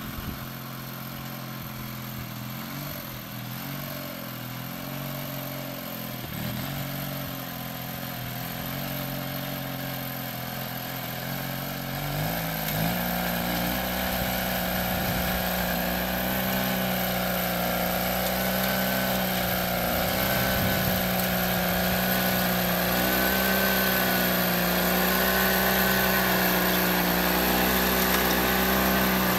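Honda F190 walk-behind tiller's petrol engine running steadily at low speed. About twelve seconds in it speeds up and gets louder, then holds at that higher, steady speed while the rotary tines till the soil.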